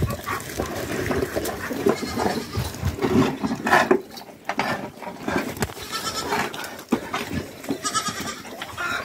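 Young goats bleating a few times at close range, with rustling and brushing noise as a goat rubs its fur against the phone.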